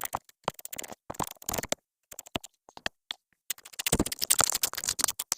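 Irregular metal clicks and scrapes of hand tools working a brake line fitting into a brake caliper, coming thicker and faster about three and a half seconds in.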